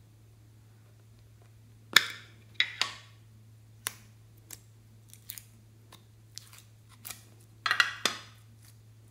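Thick slime being pulled out of its shaped container, giving sharp sticky crackles and pops. There is a loud cluster about two seconds in, fainter clicks after it, and another loud cluster near the end, over a steady low hum.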